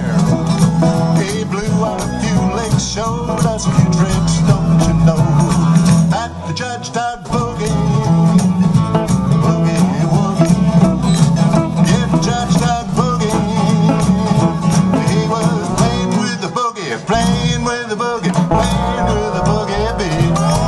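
A small acoustic band playing an up-tempo country boogie: strummed acoustic guitars over a steady beat with hand percussion.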